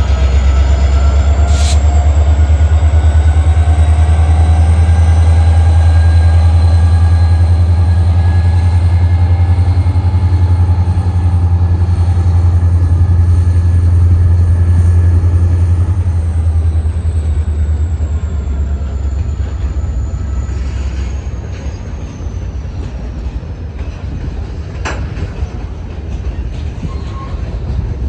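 Train passing with a heavy diesel locomotive rumble that fades after about sixteen seconds, thin wheel-squeal tones sliding over it, and a couple of sharp clicks.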